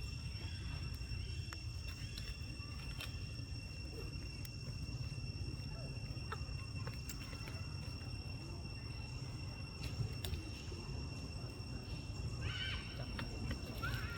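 Outdoor ambience of a steady low rumble with a constant high-pitched whine, scattered faint clicks, and a brief burst of high squeaky monkey calls near the end.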